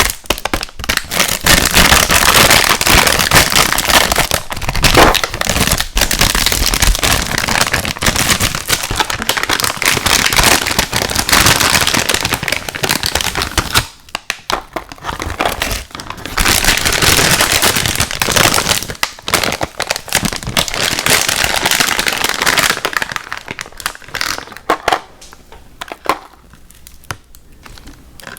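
Close-miked crinkling and crackling of plastic packaging being handled, in two long dense stretches with a brief pause about halfway, thinning to scattered crackles near the end.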